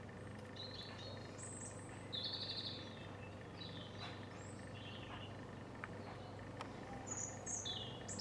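Small birds singing: a string of short high chirps and whistled notes, with a rapid trill about two seconds in and a quicker run of calls near the end. A faint steady hum sits underneath.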